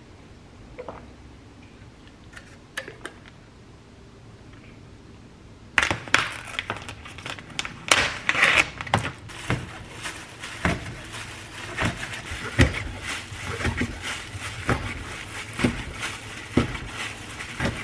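After a quiet start, crackling plastic film as a sealed tray of raw chicken thigh meat is peeled open. This is followed by a cleaver chopping boneless chicken thigh on a cutting board, sharp strikes with a dull thud about once a second.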